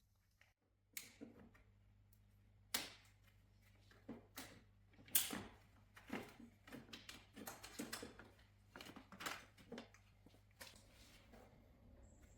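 Faint, irregular clicks and small knocks of plastic retaining clips being pulled out and parts handled, over a low steady hum.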